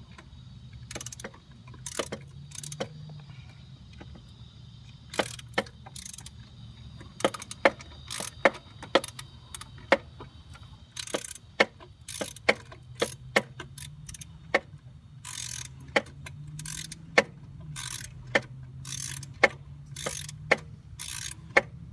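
Ratchet wrench clicking in single clicks and short runs, sharp and irregularly spaced, as the bolts on a 2006 Mustang V6's thermostat housing are tightened. A low steady hum sits beneath.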